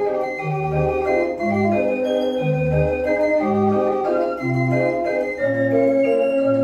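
Dutch street organ (draaiorgel) playing a tune on its pipes: a melody over a bass line that steps between notes about once a second.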